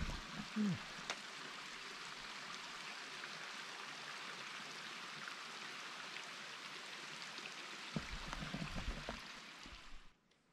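Steady rush of running water, a mountain stream or small waterfall, with a few low knocks near the end. It cuts off suddenly just before the end.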